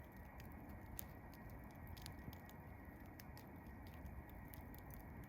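Wood campfire crackling faintly, with irregular small pops and snaps, a few each second.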